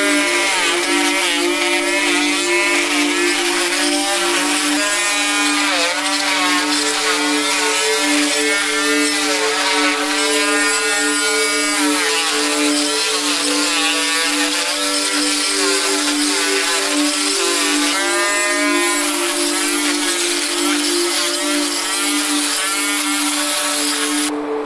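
Cordless drill running under load against charred wood, its motor whine rising and falling in pitch over a steady grinding hiss from the bit in the charcoal.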